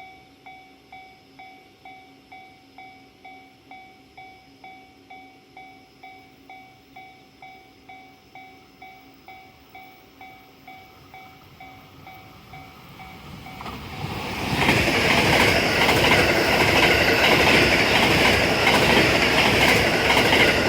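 Japanese level-crossing warning bell ringing in a steady repeated ding, about one and a half strikes a second. About thirteen seconds in, a train on JR West's Hokuriku Line approaches, and its passing noise grows loud and drowns out the bell.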